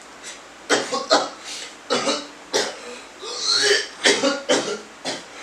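A man coughing in a series of short coughs, with a longer drawn-out throat-clearing sound a little past the middle.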